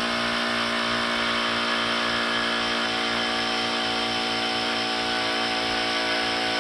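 Cordless handheld electric air pump running steadily as it inflates a bicycle tyre set to 40 psi. The motor and compressor give a constant, loud pitched hum with a throbbing underneath.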